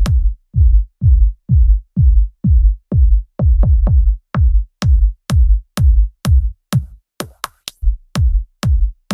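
Electronic dance music, a heavy drum-machine kick on every beat about twice a second; the kick drops out briefly about seven seconds in for a few short hits, then comes back.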